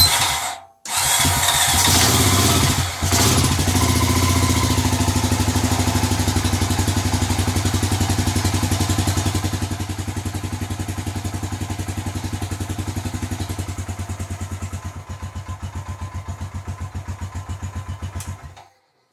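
Freshly rebuilt Honda Rancher 350 ATV single-cylinder four-stroke engine cranking and firing, choked by a hand held over the intake because the choke is stuck. It catches about a second in, falters briefly, then runs on at a low idle, its firing pulses slowing and growing distinct before it cuts off shortly before the end.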